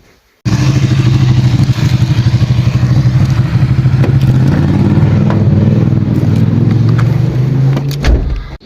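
A motor running steadily with a loud, low fluttering hum. It starts abruptly about half a second in and cuts off shortly before the end.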